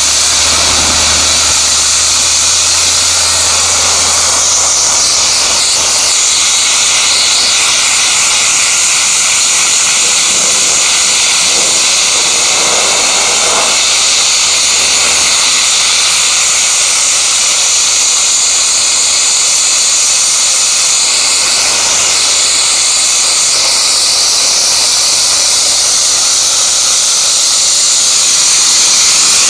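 Soda-blasting nozzle spraying food-grade baking soda at 70 psi against copper sheet: a loud, steady hiss of compressed air and media, stripping a colour-enhanced patina off the metal.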